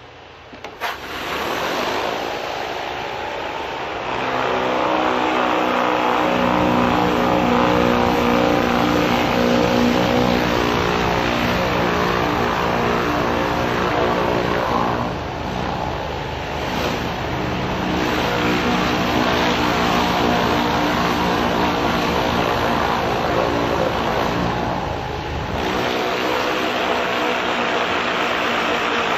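High-pressure roof cleaner's petrol engine running steadily with a hiss, starting about a second in.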